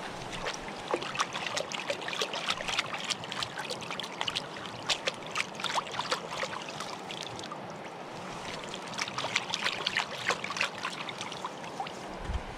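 Hands splashing in shallow shoreline water, with many small, irregular splashes and drips.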